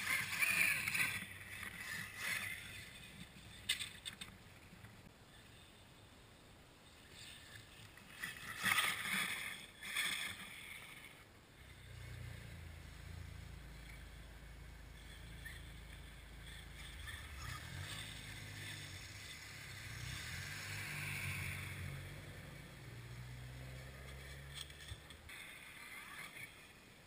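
Radio-controlled Axial Wraith truck with a brushless motor driving through snow, its tyres churning snow in loud rushes near the start and again about eight seconds in. A low rumble follows through most of the second half.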